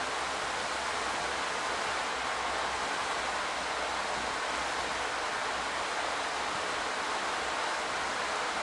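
Steady hiss of a burning pile of ammonium dichromate, the sound of nitrogen and water vapour escaping as it decomposes into chromium oxide ash.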